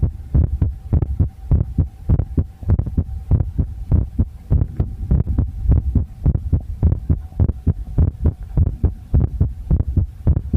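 Human heartbeat: a steady, even run of low thumps. A faint steady high tone sounds under it and stops about three-quarters of the way through.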